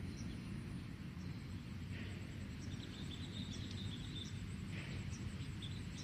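Rural outdoor ambience: a steady low rumble, a faint high, evenly pulsing insect trill, and a few bird chirps about three seconds in.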